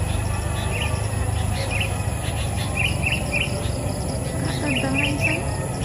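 Sooty-headed bulbul calling: short bright notes, some in quick runs of three, over a steady high insect buzz and a low background rumble.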